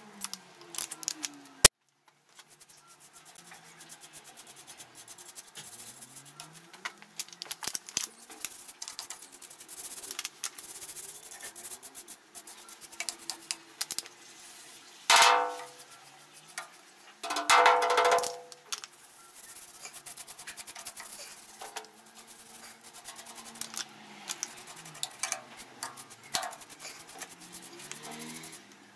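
Stiff brush scrubbing the grimy, diesel-wet body of an old Elgin sewing machine, in quick scratchy strokes. Two loud, brief pitched calls stand out about halfway through, with faint music underneath.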